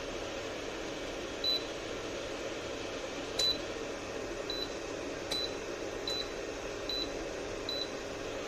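Ceramic fan heater running with a steady fan hiss while its controls give seven short high beeps at uneven intervals, a few of them with the click of a button being pressed.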